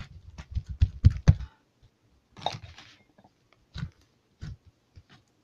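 Freshly activated slime being kneaded and stretched by hand: a quick run of wet clicks and squelching pops with low thumps for about the first second and a half, then scattered single pops.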